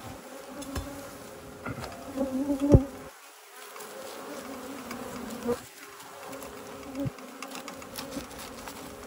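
A disturbed colony of honey bees buzzing as a steady swarm hum around its exposed nest cavity. A few sharp knocks come through, the loudest nearly three seconds in.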